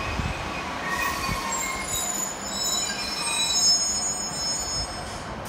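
Two coupled Class 153 diesel railcars running slowly into the platform with a rumble, and a high-pitched squeal of several tones rising to its loudest about three and a half seconds in as the train slows to a stop.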